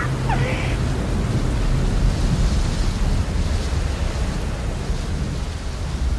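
Thunderstorm: a continuous low rumble of thunder with a hiss of rain over it. Just after the start there is a brief falling whistle.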